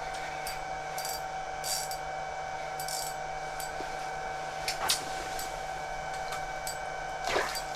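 Steady mechanical hum holding several fixed tones, with a few brief rustles and light clicks scattered through it.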